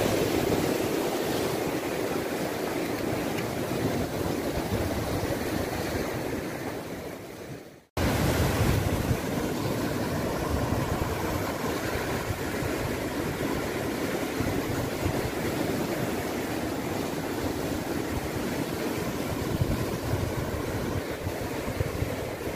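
Ocean surf breaking and washing over rocks as a steady rush, with wind noise on the microphone. The sound cuts out for an instant about eight seconds in, then the surf resumes.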